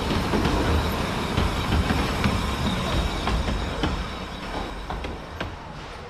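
Narrow-gauge open passenger cars rolling past, their wheels rumbling on the track with scattered clicks over the rail joints. The sound fades over the last couple of seconds as the cars move away.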